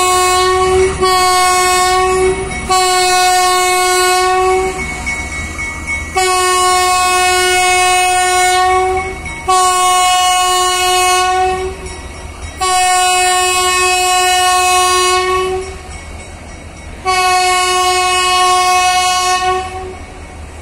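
GE U20C diesel locomotive's horn sounding a series of about seven blasts, each one to two and a half seconds long, on one steady note. Under the blasts runs the low rumble of the locomotive and its wagons rolling past.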